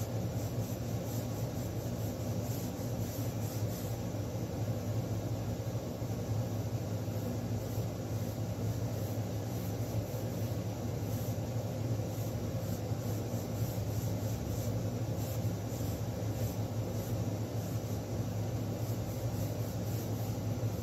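Steady low hum over a constant noisy hiss, unchanging throughout, like a fan or other running appliance in the room.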